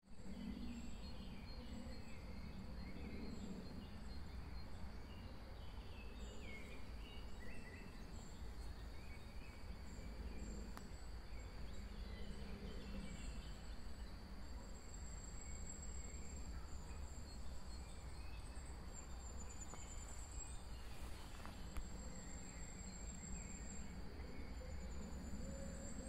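Woodland ambience: insects chirring steadily, with a higher pulsing trill, and scattered short bird calls over a low rumble.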